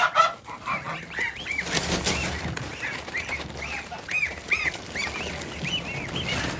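A flock of goslings peeping, with adult domestic geese among them: a steady run of short, high calls, about two a second.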